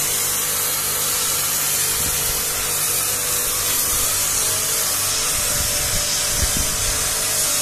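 StarQ W3 electric pressure washer running with its foam cannon spraying: a steady hiss of spray over the motor's steady hum, with a couple of low thumps, one about two seconds in and one near the end.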